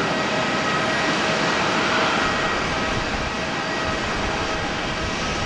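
Jet engine noise from a Boeing 747-8's four GEnx-2B turbofans: a steady, loud rush with a few steady whining tones running through it.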